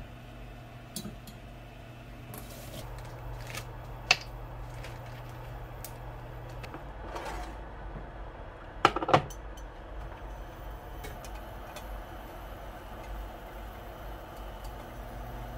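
Cookware being handled on a kitchen counter: scattered light clinks and knocks, with a sharp knock about four seconds in and a sharp double clack about nine seconds in as a black nonstick grill pan and another pan are moved about.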